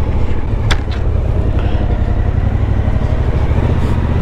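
Suzuki motorcycle engine running steadily at low town speed, with road and wind noise, and a single sharp click about a second in.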